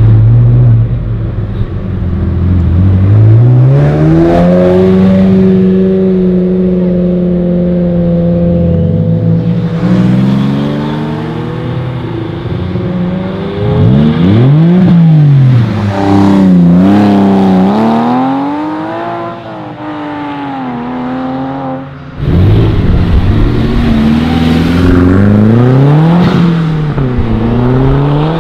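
Several sports car engines accelerating hard, one after another, a Ferrari 360 Modena first. Loud revs climb and hold, then drop at the gear changes. In the middle the pitch swings up and down quickly several times.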